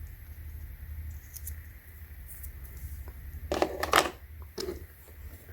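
Small hand tools from a tap and die set being handled: a few light clicks, then a cluster of clacks and scrapes about three and a half seconds in and another shortly after. A low steady hum runs underneath.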